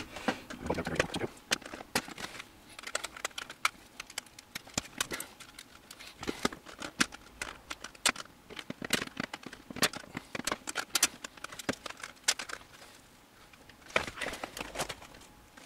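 Irregular small clicks and taps of long-nose pliers working a metal locking ring onto an SMA antenna connector, drawing the snug connector through the plastic transmitter case. Near the end comes a denser patch of rustling and knocking as the plastic case is handled.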